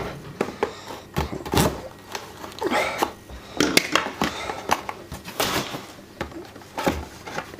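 Brake pad packaging being opened and the new pads handled: irregular rustling with a string of sharp clicks and knocks.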